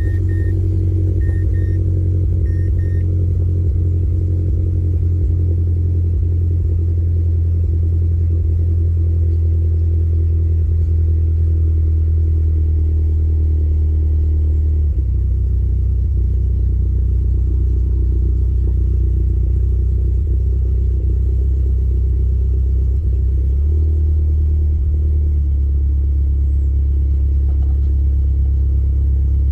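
The Mazdaspeed3's turbocharged four-cylinder engine idling, a steady low hum whose note drops to a lower idle about halfway through and briefly rises again near the 24-second mark. A few short high beeps sound in the first three seconds.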